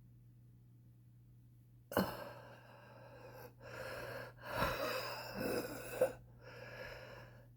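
A smoker's wheezing breathing. A sudden gasp comes about two seconds in, then a string of wheezy breaths in and out, the last one quieter.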